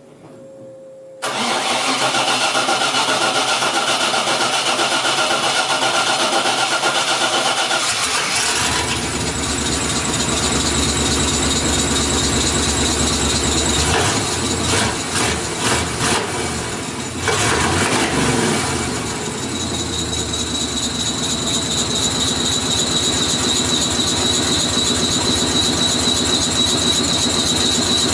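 Pickup truck engine starting abruptly just over a second in and running through its newly installed Y-pipe exhaust. It runs unevenly for a few seconds in the middle, then settles into a steady run with a thin high whine.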